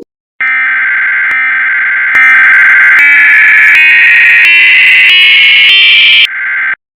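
Loud electronic emergency-alert tone, a buzzy, steady tone that starts about half a second in and steps up in pitch roughly every three-quarters of a second, edited in YTP fashion. It drops back down in pitch near the end and then cuts off suddenly.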